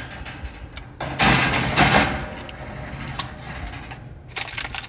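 A pan of batter lined with parchment paper is pushed onto a metal oven rack: a loud rustle and scrape of paper and rack about a second in, then a few sharp metallic clicks and clanks near the end.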